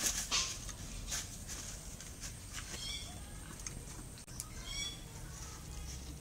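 Mouth sounds of people eating with their hands: chewing and wet lip smacks, with fingers mixing rice on steel plates. A few short high chirps come in around the middle and later.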